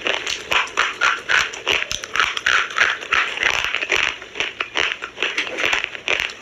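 Minakshi-brand slate pencils being bitten and chewed close to the microphone: a dense run of sharp crunches and gritty crackles, several a second, without a pause.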